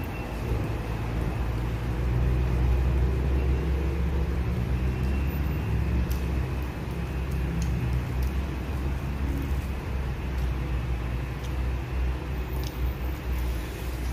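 Steady low background rumble that swells slightly about two seconds in, with a few faint clicks.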